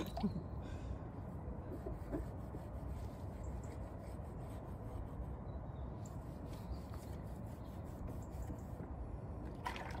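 Damp cloth rubbing over the glass of a boat-roof solar panel as it is wiped clean.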